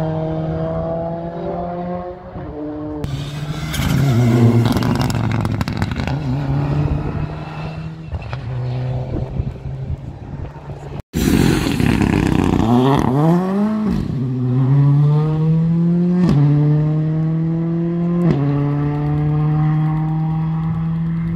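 Rally car engine revving hard as the car accelerates through the gears, the pitch climbing steadily and dropping at each upshift. About halfway the sound cuts abruptly to another pass, where the revs fall and rise again before the car pulls away through two more upshifts.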